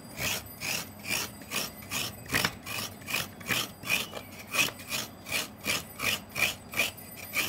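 Fresh coconut flesh being scraped out of a half shell on a serrated coconut grater (kurani): a rhythmic rasping, about three strokes a second.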